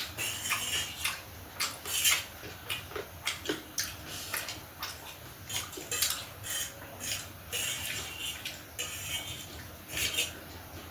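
Close-up eating sounds: irregular wet chewing and smacking of noodles and fried snacks, with short clicks of cutlery against a plate.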